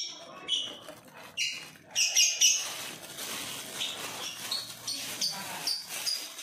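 Thin plastic bags crinkling and rustling as they are twisted and knotted shut, mixed with short high chirps repeated every second or so.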